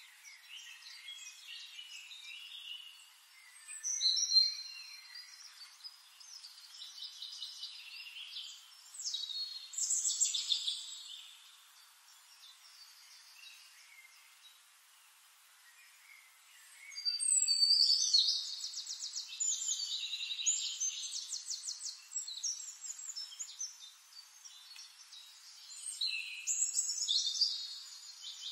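Birds chirping and trilling in bouts, high and thin, with a quiet lull in the middle and then the loudest stretch, a long rapid trill, a little past halfway.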